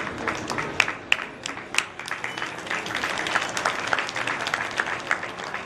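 Audience applauding: scattered sharp hand claps that thicken into denser, steady applause about two and a half seconds in.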